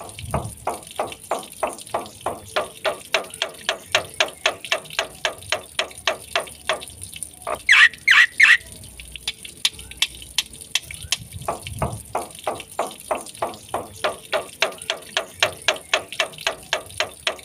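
Black-winged starling (jalak putih) in full song, repeating short chattering notes at about three a second, with a brief louder burst of higher chirps about eight seconds in. A faint steady high hiss runs underneath.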